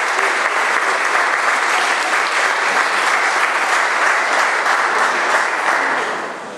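A congregation applauding: dense, steady clapping from many hands that begins to die down near the end.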